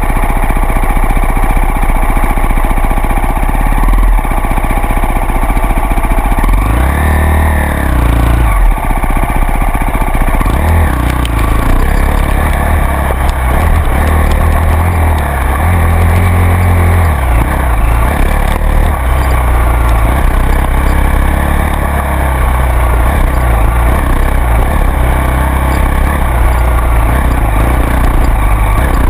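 Off-road vehicle's engine running under load on a trail ride, its revs rising and falling several times.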